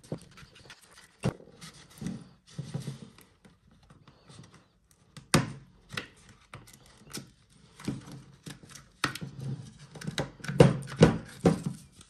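Irregular plastic clicks, knocks and scraping as the fabric grille of a JBL Link 10 Bluetooth speaker is worked off its plastic body by hand, the knocks closer together and louder near the end.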